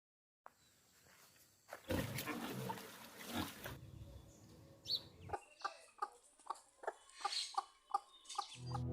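A farm animal calling: after a stretch of rustling noise, a run of short, evenly spaced calls, about three a second, in the second half.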